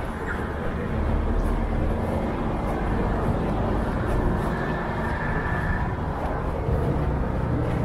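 City street ambience: steady noise of road traffic on a wet avenue, with a faint high tone for a second or so in the middle.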